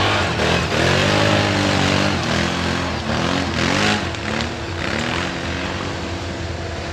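ATV engine revving up and down again and again, its pitch rising and falling in quick swells over a rough rushing noise, with a steady hum underneath.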